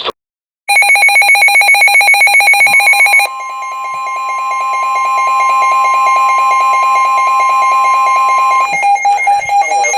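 Weather-radio emergency alert tones: a fast, pulsing electronic alarm for about two and a half seconds, then steady alarm tones, including the single steady NOAA Weather Radio warning tone, which stops about a second before the end. This is the alert sequence that comes before a new warning message is read.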